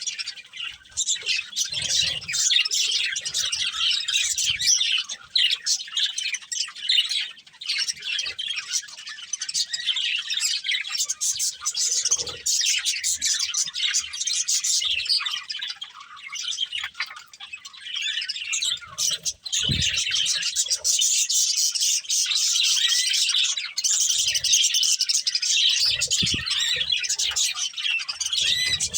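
Budgerigars chattering and chirping without a break, a dense stream of quick high chirps and warbles. A few short low knocks come at intervals.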